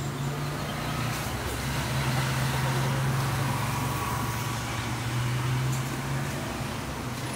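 Steady street traffic noise with a low droning hum that dips briefly about a second in.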